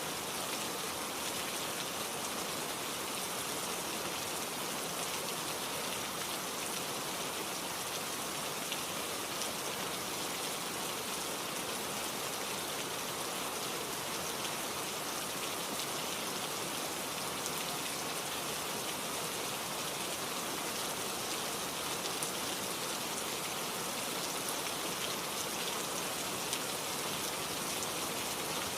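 Steady rainfall: an even hiss of rain with fine patter of drops, holding constant throughout.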